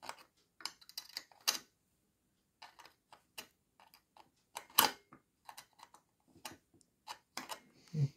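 Irregular small metallic clicks and taps of a hand tool on the nuts of an electric kettle's base contact assembly as they are tightened, with one sharper knock about five seconds in.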